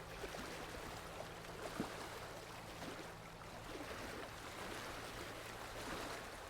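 Small sea waves lapping and trickling at the shoreline: a soft, steady wash with a few small splashes, the clearest a little under two seconds in.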